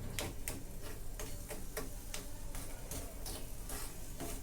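A utensil stirring a pan of batashe sugar drops melting with black pepper and a little water over a low flame, clicking against the pan about three times a second in an even rhythm.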